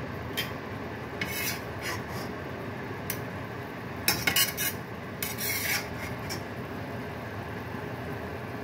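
A metal utensil scraping and clinking against cookware in several short bursts, busiest about four to six seconds in, over a steady background hiss.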